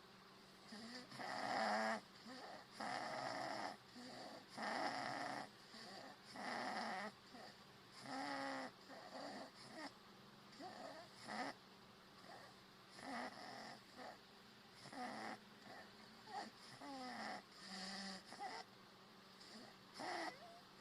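A sleeping person snoring: one loud, rough snore about every two seconds, some of them wavering up and down in pitch.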